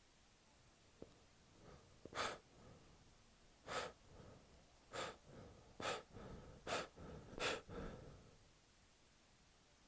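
A man with a head cold taking six sharp, gasping in-breaths, about a second apart: the build-up to a sneeze.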